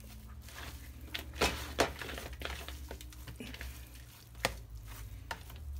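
Bare hands tossing sliced raw beef in a wet spice marinade in a bowl: soft squishing and rustling, with a few sharp taps against the bowl, three of them the loudest sounds. A low hum runs underneath.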